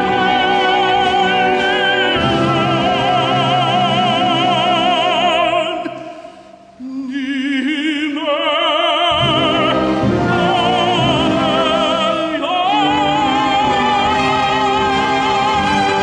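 Tenor singing a Korean art song (gagok) in operatic style, with wide vibrato, over instrumental accompaniment. The music thins out briefly about six seconds in, then the voice comes back and climbs into a long held note near the end.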